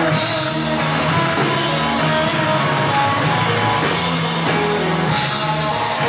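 Live instrumental rock band playing at full volume: electric guitar and electric bass holding low sustained notes over a drum kit with repeated cymbal hits.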